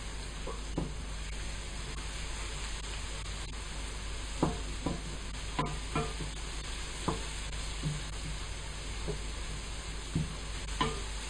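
Sliced spring onion sizzling in cooking oil in a frying pan with a steady hiss, stirred with a wooden spatula that knocks and scrapes against the pan at irregular moments.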